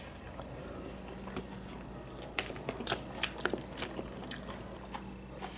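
A person chewing food close to the microphone, with scattered small eating clicks in the middle stretch, over a low steady hum.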